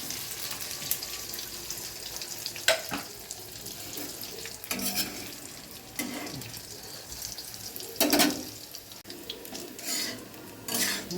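Chicken balls deep-frying in hot mustard oil, a steady sizzle. A utensil stirs and clinks against the pan a few times, sharpest about a third of the way in and near the end.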